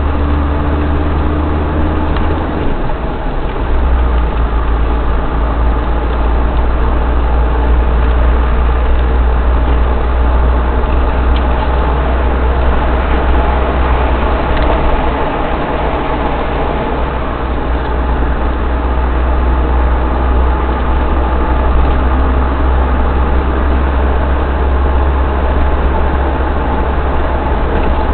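Car engine and tyre noise heard inside the cabin while driving, a steady low drone. A faint whine stops about three seconds in.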